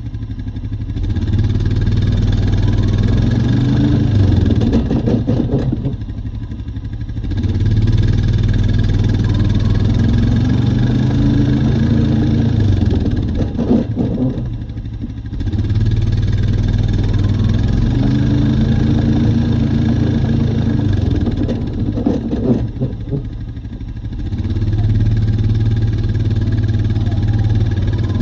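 Honda Rubicon 520 ATV's single-cylinder engine running under way, pulling with rising pitch and easing off three times for a second or two. The owner reports that the machine makes a grinding noise when driving.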